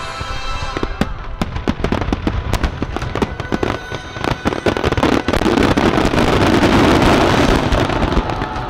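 Fireworks going off in quick succession, many sharp bangs and crackles, thickening into a loud, dense crackling barrage from about five seconds in that eases off near the end; music plays underneath.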